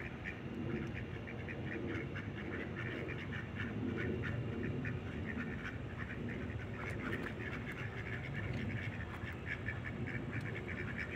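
Ducks quacking: many short calls in quick succession.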